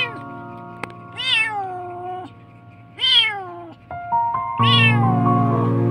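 A kitten meowing four times, about once every one to one and a half seconds, each call rising then falling in pitch, over background music.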